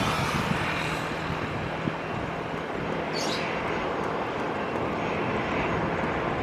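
Steady jet noise from the CFM56-7B engines of a Boeing 737-900ER on final approach, with a brief high chirp about three seconds in.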